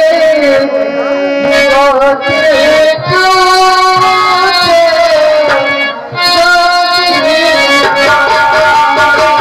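Nautanki folk-theatre music: a held, wavering melody that slides between notes, over steady hand-drum strokes.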